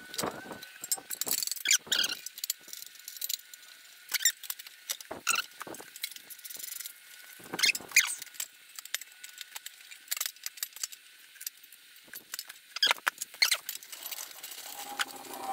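Scattered clicks, light knocks and squeaks as the engine side shroud of a John Deere X585 lawn tractor is worked back into place by gloved hands, with a bolt handled near the end.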